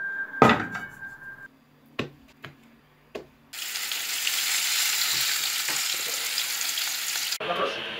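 Floured pike pieces frying in hot oil in a frying pan, a loud steady sizzle that starts about three and a half seconds in and cuts off suddenly near the end. Before it come a sharp knock, a short steady beep-like tone and a few light clicks.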